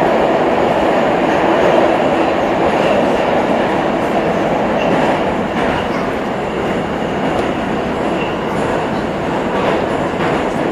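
Metrowagonmash 81-765 "Moscow" metro train heard from inside the car while running between stations: a loud, steady rumble of wheels on rail with a faint high whine. It eases slightly in loudness over the last few seconds.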